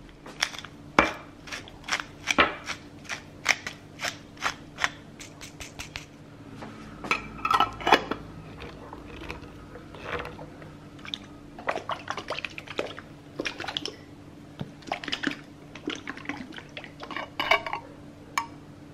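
Small glass jar with a screw-on metal lid being handled: a steady run of sharp clicks, about two or three a second, then bursts of clattering as the lidded jar is gripped and shaken to mix an oil-based dressing.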